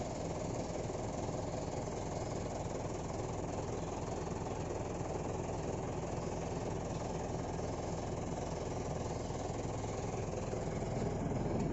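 Mitsubishi Canter dump truck's diesel engine idling steadily, growing a little louder near the end.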